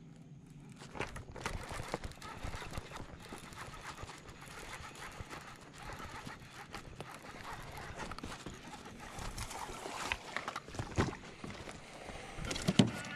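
A bass being fought and brought in beside a fishing kayak: a fishing reel being cranked with dense clicking, and the hooked fish splashing at the surface. Near the end there is a sharp knock, the loudest sound.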